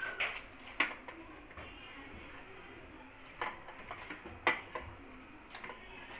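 Hands kneading rice-flour dough in a steel plate: soft pressing and handling sounds with about four sharp clicks and knocks against the plate.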